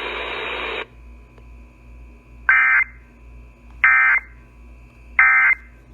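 Emergency Alert System end-of-message data bursts: three short, identical buzzing digital bursts about a second and a half apart, marking the end of the alert. Before them a hiss cuts off within the first second.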